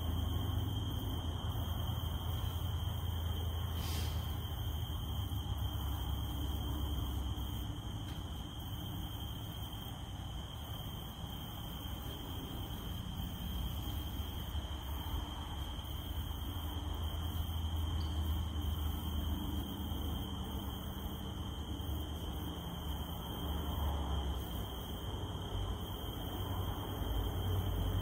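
Cicada drone held at one steady high pitch, over a low rumble and a faint even hiss. A single sharp click about four seconds in.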